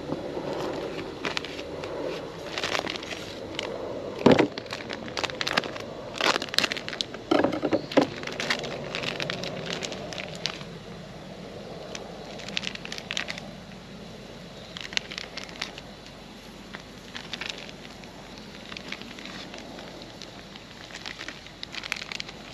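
Campfire crackling and popping, with a few louder knocks in the first half; the pops thin out in the second half.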